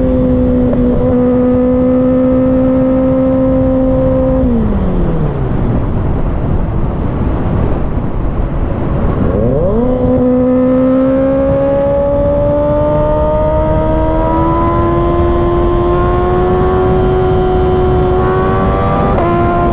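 Kawasaki ZX-6R's 636 cc inline-four running at a steady pitch on the highway, then throttle closed so the pitch falls away into a few seconds of wind rush. About halfway through it comes back on the throttle and pulls with a slowly rising pitch, then drops sharply near the end in a quick upshift.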